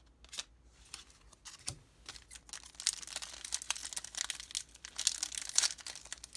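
Foil booster pack wrapper crinkling and being torn open by hand. A sparse crackle becomes dense and steady about three seconds in.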